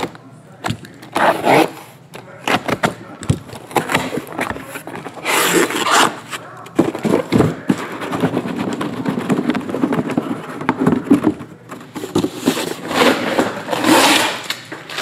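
Utility knife slicing the packing tape on a cardboard shipping case, then cardboard scraping and rustling in irregular bursts with scattered clicks as the case is opened and the shrink-wrapped boxes inside are handled.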